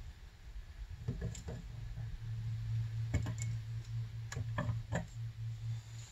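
Light clicks and clinks of small hard carburetor parts being handled, in small clusters, over a steady low hum.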